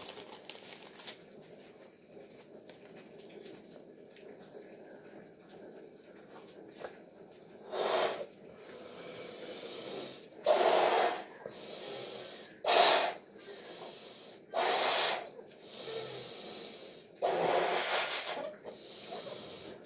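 A latex balloon being blown up by mouth: from about eight seconds in, five hard breaths are blown into it, each about a second long, with quieter pauses for inhaling between.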